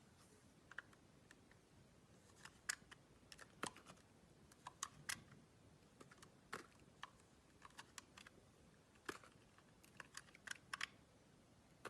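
A knife cutting into a block of clear soap: a run of short, crisp clicks and snaps at irregular intervals over a quiet background.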